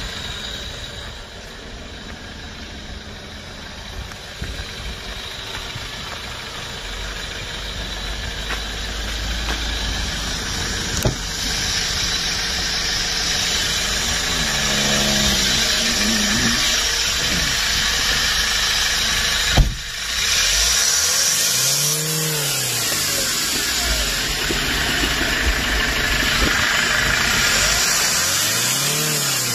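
Hyundai Porter II's common-rail diesel engine idling steadily, growing louder about a third of the way in as it is heard up close under the tilted-up cab seat. A single sharp knock comes about two-thirds of the way through.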